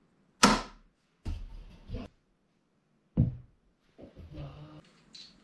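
Sharp knocks, one about half a second in and another about three seconds in, each dying away quickly, with fainter clattering between them.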